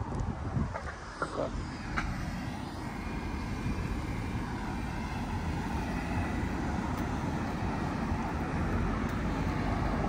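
Steady noise of a motor vehicle, slowly growing louder from about two seconds in, with a few low buffets in the first second.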